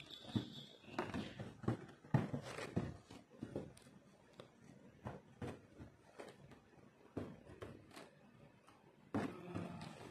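Faint, irregular clicks and taps from hand embroidery work: an aari hook pushing through fabric and fingers handling loose sequins on the cloth.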